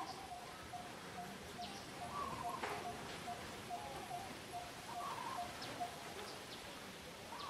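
A bird calls in the background with a long run of short, low, evenly spaced notes, about two or three a second. A wavering higher call comes in every two to three seconds over a faint outdoor hiss.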